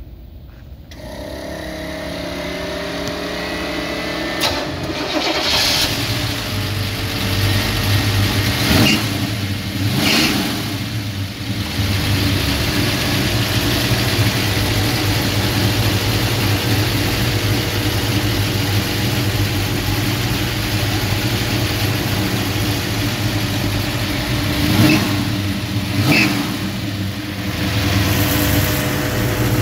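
A 1966 Chevrolet Nova's V8 engine starting about a second in, then idling. The throttle is blipped into short revs several times.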